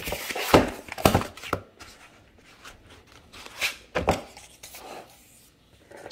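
Handling of paper photo strips and a book on a wooden tabletop: a few dull knocks on the wood, two close together about a second in and two more near four seconds, with light paper sliding between them.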